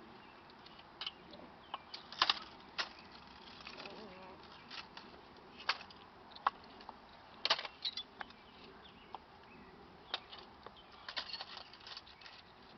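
Irregular light clicks and knocks, a dozen or so at uneven gaps, some in quick pairs, over a faint steady hiss.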